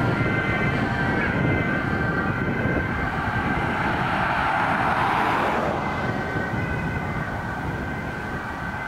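Sirens of fire brigade diving-team vans on an urgent run, sounding steadily as they drive away and slowly fading. A car passes close by midway, over the engine and tyre noise of the road.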